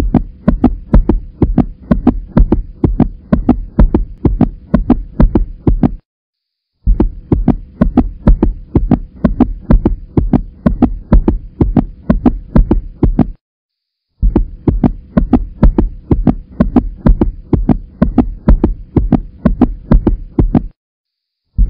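A looped soundtrack of fast, heavy low thumps over a steady hum, breaking off into brief silence about every seven seconds before starting again.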